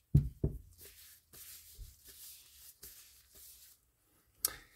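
Handling noise from a metal saltwater spinning reel turned in gloved hands and laid on a cloth shop towel. Two dull thumps at the start, then soft rustling with a few faint ticks, and one sharp click near the end.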